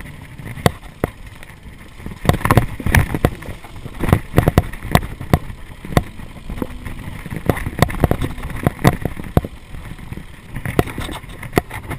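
Mountain bike rattling downhill over a rough dirt and rock trail: a dense run of irregular sharp knocks and clatters over a low rumble of tyres on the ground.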